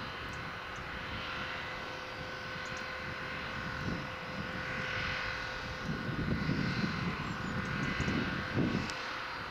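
New Holland tractor with a hedge cutter running steadily as it drives, a low engine drone with a steady whine above it. The low rumble swells and dips in the second half.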